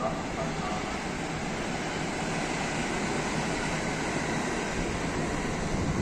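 Electric train running along the tracks, a steady rumble and hiss of wheels on rail that grows a little louder toward the end.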